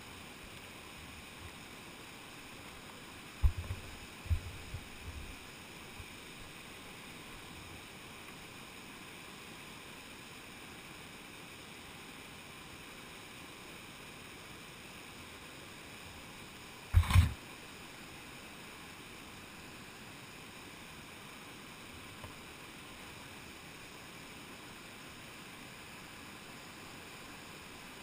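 Steady rush of river rapids, with a cluster of low knocks about three and a half seconds in and a single sharper knock at about seventeen seconds.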